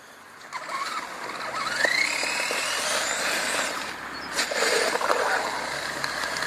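Radio-controlled monster truck with a wooden plow driving through slush on wet pavement: its motor whines, rising in pitch about two seconds in as it speeds up, over the hiss of tyres and plow in the slush.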